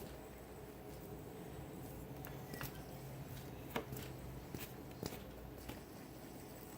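Faint sharp clicks and taps of a fidget spinner being handled, over a low steady hum.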